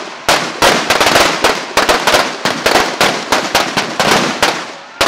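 Strings of firecrackers packed into Dussehra effigies going off in a rapid volley: sharp cracks several a second over a continuous crackle, thinning out toward the end.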